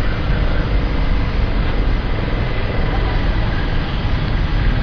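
Steady street traffic rumble and road noise.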